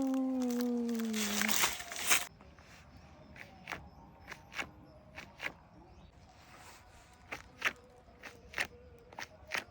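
A drawn-out "wow" voice falling in pitch, ending about a second and a half in, then a brief loud crunching rustle. After that come a dozen or so sharp, irregularly spaced taps and clicks of hands working with wood.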